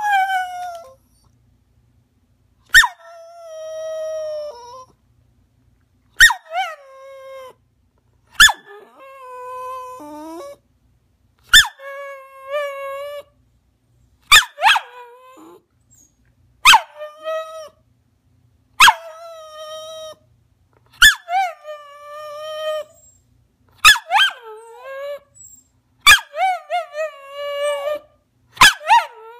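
Rat terrier crying in a long series of calls, about one every two to three seconds: each opens with a sharp yip and draws out into a wavering, howl-like whine. It is demand whining, the dog begging to be let up onto the couch.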